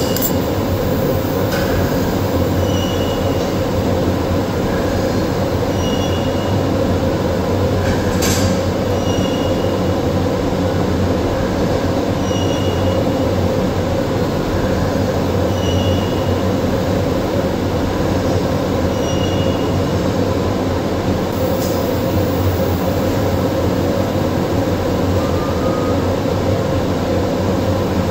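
TIG welding arc burning with a steady hiss and low hum, with faint short high chirps every couple of seconds.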